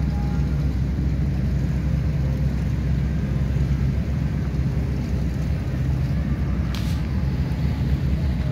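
Steady low drone of many motorboat engines running out on the lake, mixed with wind buffeting the microphone. A single short, sharp knock comes about seven seconds in.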